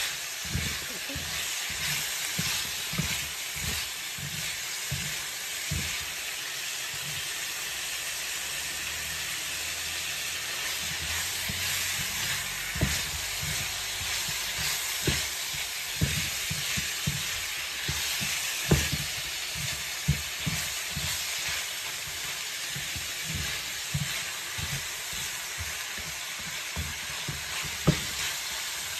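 Ground meat and bell peppers sizzling in a skillet, with a steady frying hiss. A wooden spatula stirs the food, scraping and knocking against the pan in frequent irregular taps.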